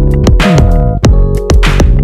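Electronic background music with a steady drum-machine beat and synth notes, with a falling synth sweep about half a second in.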